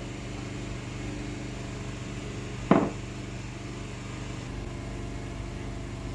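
Steady low hum with one short, sharp knock a little under halfway through.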